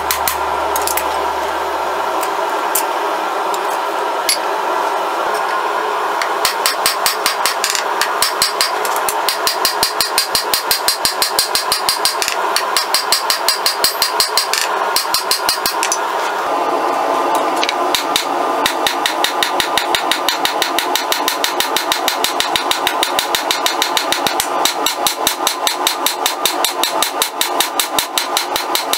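Hand hammer striking red-hot rebar steel on an anvil in quick, even blows, about four a second, while the blade is forged to shape. A steady rushing noise runs underneath.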